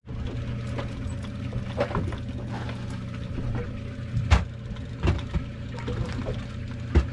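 Boat motor running with a steady low hum, water sloshing, and scattered knocks, two of them louder, about four seconds in and near the end.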